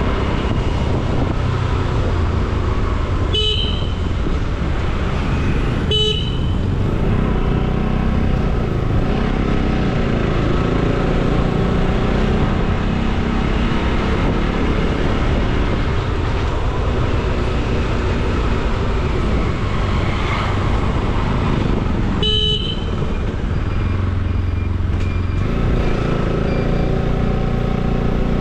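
Motorcycle ridden along a highway, engine running steadily under road noise, with three short horn toots: two a few seconds apart early in the ride, one more near the end.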